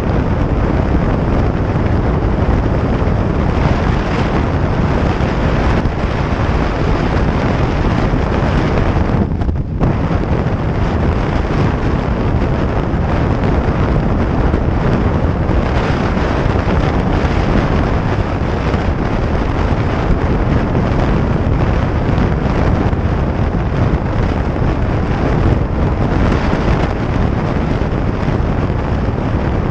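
Steady wind rush over the microphone, mixed with the engine and road noise of a 2017 Harley-Davidson Iron 883 motorcycle at highway speed. The wind briefly drops out about nine and a half seconds in.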